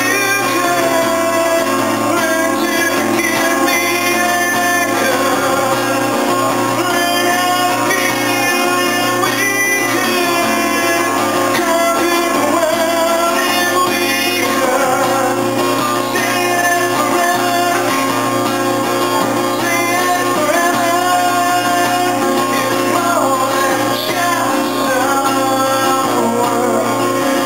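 A man singing into a microphone while playing an acoustic guitar, with sung phrases running over steady chords.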